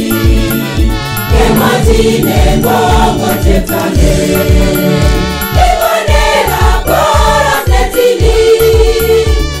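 Gospel song: a choir singing over backing music with a steady low beat about twice a second.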